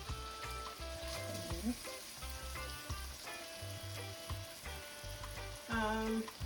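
Chopped aromatics and tomato sizzling as they fry in olive oil and butter in a hot pot, with stirring.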